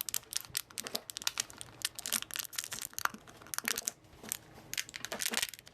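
Packaging being crinkled and torn open by hand: a dense run of irregular crackles and rustles.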